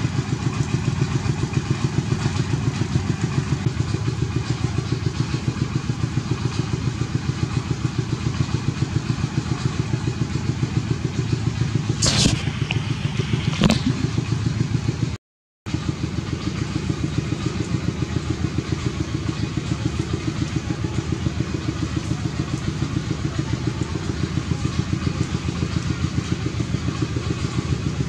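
A motor engine running steadily with an even, pulsing throb. Two short, sharp, high-pitched sounds cut in a little before the middle, and the sound drops out completely for a moment just after.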